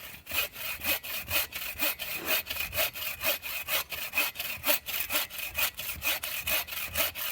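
Hand saw cutting through a log with steady back-and-forth strokes, about two a second.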